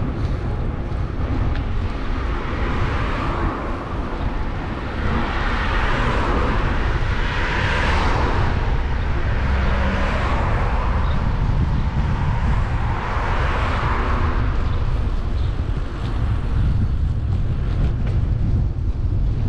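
Wind rumbling on the microphone of a moving bicycle, with several motor vehicles passing one after another, their road noise swelling and fading.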